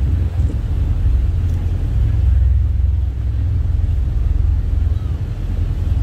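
Steady, loud low engine rumble of a motor vessel or vehicle running at a constant speed.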